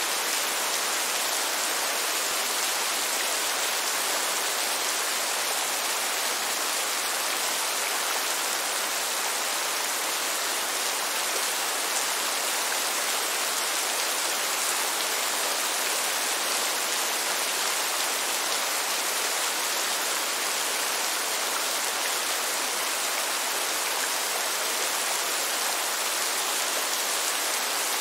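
Steady rain falling, an even, unbroken hiss that sits mostly in the high range with little low rumble.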